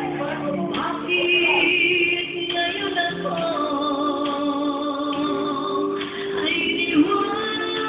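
Music with a singing voice, made of long held notes that change every second or two, with a slight waver on some of them.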